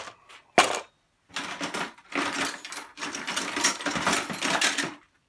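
Metal parts knocking and rattling as they are handled, among them copper heater elements: two sharp knocks in the first second, then about four seconds of continuous clinking and clattering.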